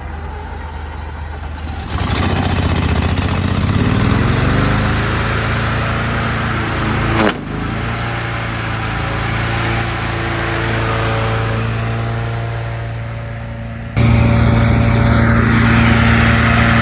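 Lawn mower engine running hard, rising in pitch over the first few seconds as it revs up. There is one sharp crack about seven seconds in, and the engine turns abruptly louder near the end.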